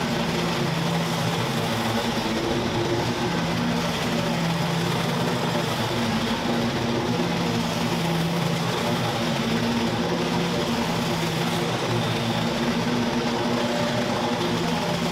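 Lawn mower engine running steadily, its hum swelling and fading every few seconds.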